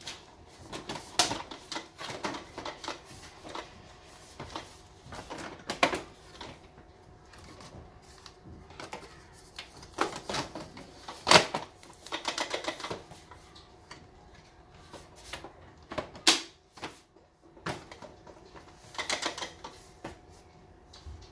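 Irregular clicks, taps and knocks of hard plastic parts and packaging being handled while a Dyson air purifier fan is unboxed. A few louder knocks stand out, the sharpest about eleven seconds in.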